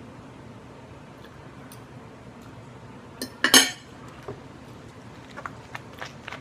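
A metal fork clinking and scraping on a plate, with one louder clatter of cutlery on the plate about halfway through. Near the end, sharp clicks and crinkles as a plastic water bottle's cap is twisted open.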